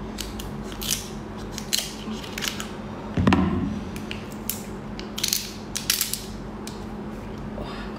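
Kitchen scissors snipping through a cooked king crab leg's spiny shell, then the shell cracking and snapping as it is pulled apart by hand: a string of sharp, crunchy clicks, with one heavier knock about three seconds in.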